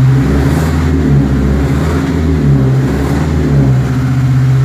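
Chevrolet S10 2.4 four-cylinder engine in a Jeep Willys, fuel-injected by a FuelTech 300, revved up from idle a few times and settling back to a steady idle near the end.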